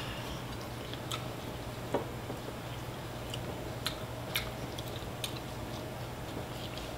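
A person chewing quietly while eating, with a few faint, scattered clicks and taps, over a steady low hum.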